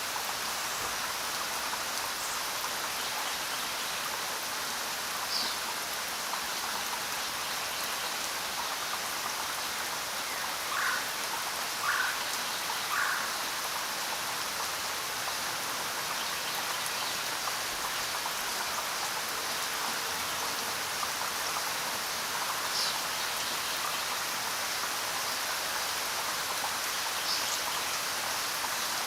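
Steady rainfall, an even hiss of drops. Three short chirp-like calls come close together about eleven to thirteen seconds in, with a few fainter high chirps scattered elsewhere.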